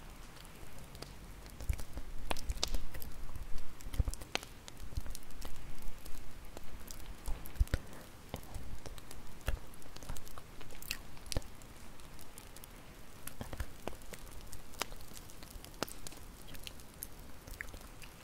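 Bonfire crackling, with irregular sharp pops and snaps.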